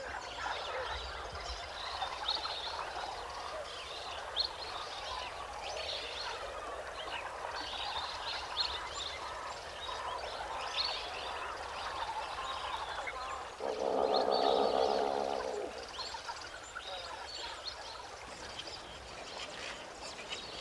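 Mixed wetland birds calling: a dense chorus of many short, high calls, with one louder, lower call lasting about two seconds, about fourteen seconds in.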